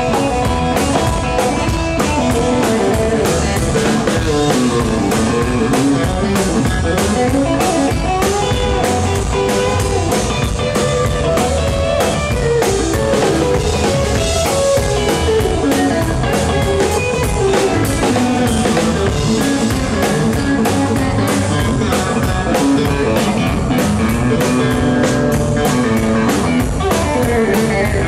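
Live rockabilly band playing an instrumental break with no vocals: electric guitar, upright bass and drum kit.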